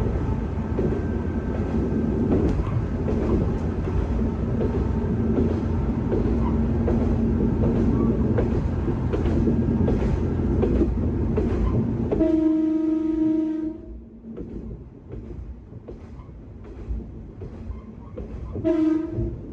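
Kanto Railway Kiha 2000 series diesel railcar running under power with rail noise and a steady engine tone. About twelve seconds in, the horn sounds for about a second and a half and the engine noise drops away, leaving quieter running. The horn gives a second short blast near the end.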